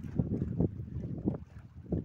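Wind buffeting the microphone in uneven gusts, a low rumbling noise.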